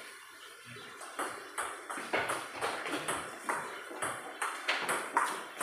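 Table tennis rally: the ball clicking off the bats and bouncing on the table in quick alternation, about two to three hits a second, starting about a second in.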